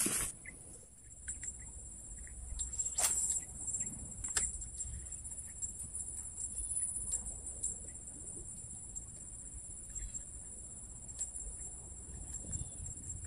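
Insects chirring in a steady high-pitched drone, with a few sharp clicks about three and four and a half seconds in and a low rumble underneath.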